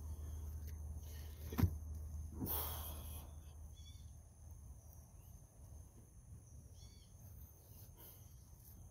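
Outdoor ambience: a low rumble that fades out about halfway, a single knock early on, and a small bird chirping briefly twice.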